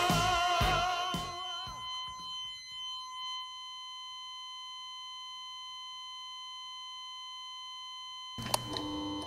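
Rock music with singing fades out over the first two seconds, leaving one long, unbroken electronic tone like a patient monitor's flatline alarm. Just past eight seconds a sharp click cuts in and a lower, different steady tone replaces it.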